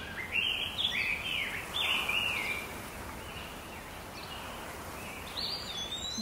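Birds calling over a steady outdoor hiss: a quick series of short whistled phrases in the first couple of seconds, fainter calls after, and one rising whistle near the end.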